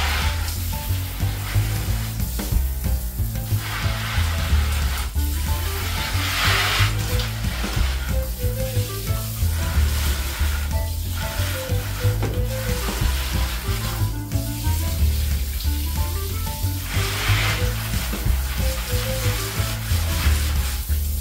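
Water spraying onto plants, a hiss that swells and fades several times, under background music with a steady bass line and a melody of short notes.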